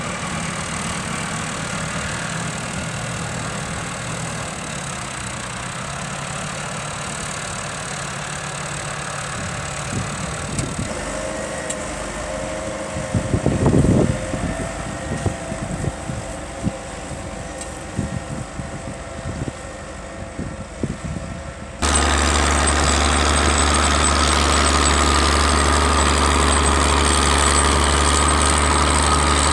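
Tractor engines running steadily, with a brief louder stretch about halfway. About three-quarters of the way in, the sound jumps abruptly to a louder, deeper steady engine hum close by.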